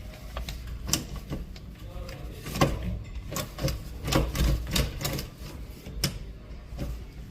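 Irregular mechanical clicks and knocks from a door's lock and latch being worked, the Marks iQ latch moving but not retracting far enough because it is failing inside.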